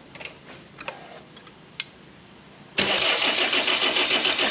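Engine catching about three seconds in and running steadily, started just to show the smoke escaping from its leaking injector. A few faint clicks come before it.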